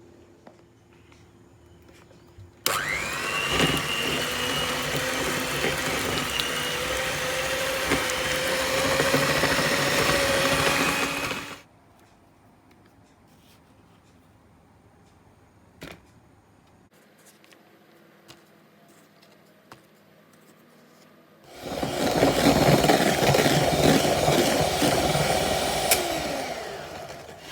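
A small electric kitchen appliance motor runs in two long bursts, the first about nine seconds with its pitch creeping slightly upward, the second about five seconds near the end. Between them is a quieter stretch with a few light clicks and taps.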